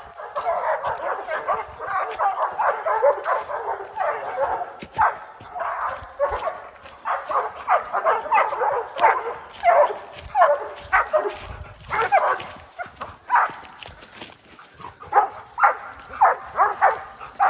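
Several Airedale terriers barking and yipping rapidly, their barks overlapping in a near-continuous stream: dogs baying at a black bear they have treed.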